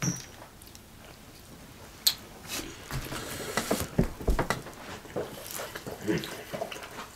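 People eating fried chicken legs: meat pulled off the bone with the fingers, biting and chewing, with scattered small clicks. A couple of low thumps about four seconds in, like a knock on the table.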